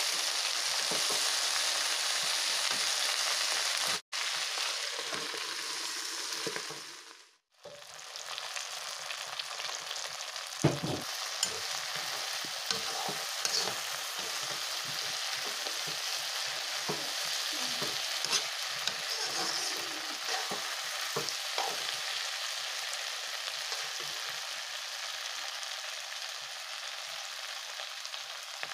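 Pork and green vegetable stalks sizzling in a hot wok, with a steel spoon stirring and scraping against the pan in scattered clicks and knocks. The sound cuts out for an instant about four seconds in, then fades away and comes back a few seconds later.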